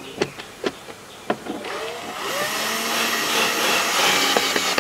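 A few light clicks of hardware being handled. Then, from about two seconds in, a small electric motor whirs steadily with a hiss, growing slightly louder.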